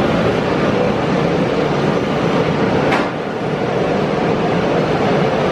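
Vienna U-Bahn metro train running along an underground platform: a steady rumble and hiss of wheels and motors, with a single sharp clack about three seconds in.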